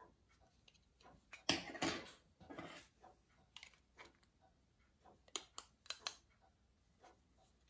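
Small metal parts of a silver pocket-watch case handled in the fingers: a few rubbing scrapes, then several quick, sharp metal clicks a little past halfway, with faint small ticks in between.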